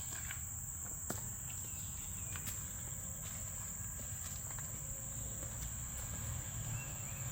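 Steady, high-pitched drone of insects, unbroken, with a few faint clicks now and then.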